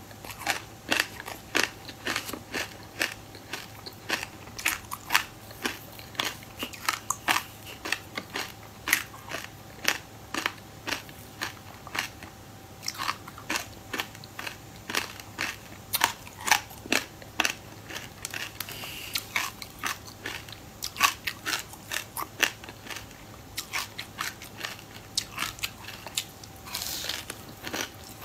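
Close-up crunching of raw buckwheat groats coating a frozen passion fruit chunk as it is bitten and chewed: a dense, irregular run of sharp crackles and crunches with a few short pauses.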